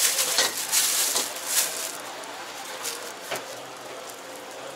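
Thin plastic bag crinkling and rustling as it is opened and handled, in quick bursts over the first two seconds, then quieter with one more rustle partway through.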